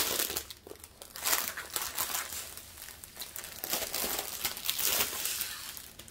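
Clear plastic packaging around a strip of diamond-painting drill pouches crinkling irregularly as hands turn it over and pull at it.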